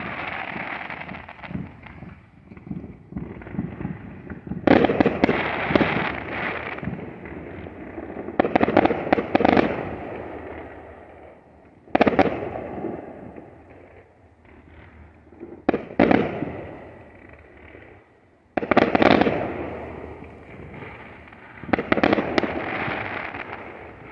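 Aerial fireworks going off: about half a dozen loud bangs a few seconds apart, each fading away over a second or two, with smaller pops and crackles in between.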